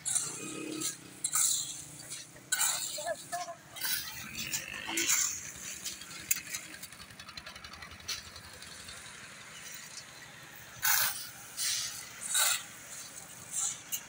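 Steel shovel scraping into a heap of crushed-stone aggregate and gravel rattling as each load is tipped, in irregular strokes a second or so apart, with a quieter stretch in the middle.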